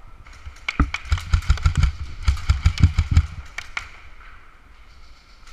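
Quick, irregular footsteps and gear knocks on a concrete floor: a run of low thumps with sharp clicks for about three seconds, then easing off to faint background noise.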